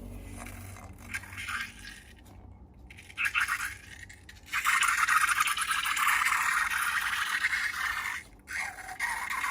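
Slime being squished and worked by hand, a wet, crackly sound: short bursts about 1 and 3 seconds in, then a dense steady stretch from about halfway, breaking off briefly near the end.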